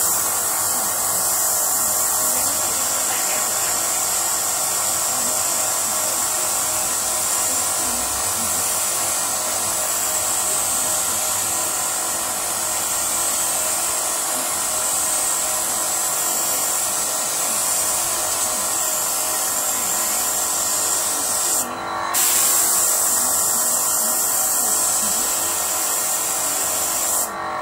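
Small high-flow airbrush/spray-gun compressor running with a steady motor hum while compressed air hisses out of the spray gun. The hiss breaks off for a moment about 22 seconds in, then goes on until everything stops near the end.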